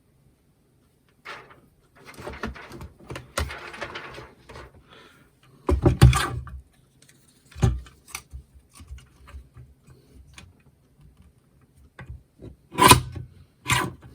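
Paper card and craft tools being handled on a desk. A stretch of rustling and scraping comes a couple of seconds in, then sharp knocks as things are set down, two of them around the middle and two near the end, with small clicks in between.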